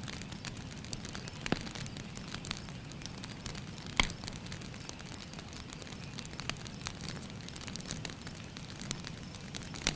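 Faint crackling of a wood fire: irregular small pops and snaps over a soft steady hiss, with one louder pop about four seconds in.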